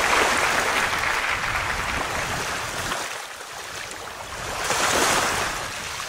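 Ocean surf washing on a shore: one wave surges near the start and fades, and another swells and breaks about five seconds in.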